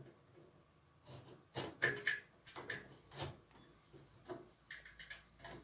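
Light metallic clicks and knocks, about a dozen, from wire connectors being worked onto an oven heating element's terminals and a screwdriver handled against the oven's sheet-metal base. The sharpest knocks come about two seconds in.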